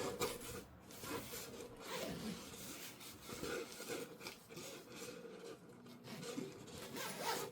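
Irregular rubbing and rustling of fabric and packaging as a collapsible photo reflector is handled and pushed back into its cover.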